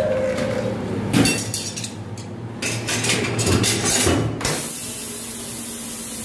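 Metal clanks and knocks as a tyre is levered onto an alloy wheel rim on a tyre changer machine. The clanks start with a sharp knock about a second in and run for about three seconds. From about four and a half seconds on there is a steady hiss.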